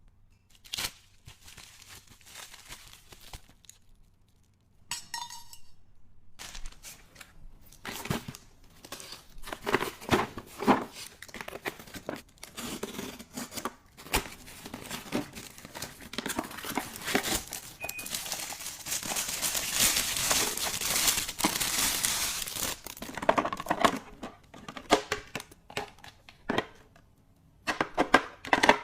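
Packaging being handled: plastic or paper crinkling and tearing, mixed with clicks and taps of objects being set down, with a denser stretch of continuous rustling in the second half.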